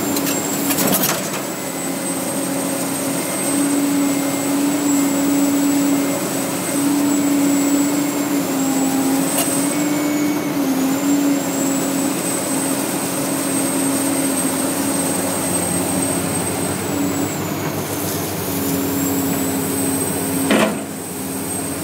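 Caterpillar 365C hydraulic excavator's C15 diesel engine running under load while it digs and swings, with a steady high whine that dips briefly twice. A single sharp knock comes near the end.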